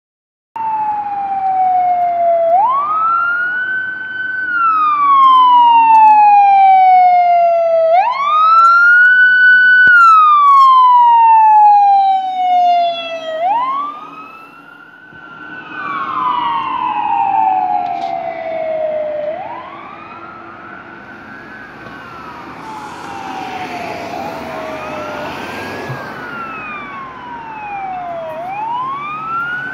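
Emergency vehicle siren on the wail setting, rising and falling slowly about every five seconds, as a fire department ambulance on an emergency run passes close by and moves away. In the later half it is fainter, and a second siren overlaps it, wailing out of step.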